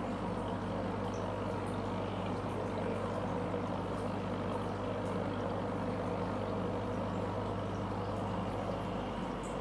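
Aquarium air pump humming steadily, with bubbles from an airstone and a sponge filter bubbling up through the water.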